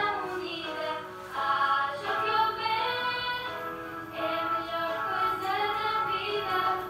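Music: a song with high-pitched singing, the notes gliding and held in long phrases.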